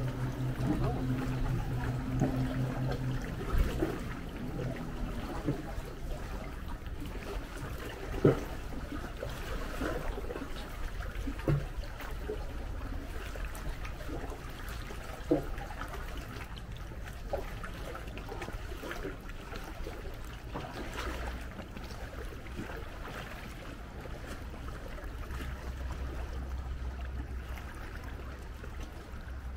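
Sea water lapping and trickling around a paddled sea canoe beside a rock cliff, with a few sharp splashes. A low steady hum sounds for the first few seconds, and a low rumble rises near the end.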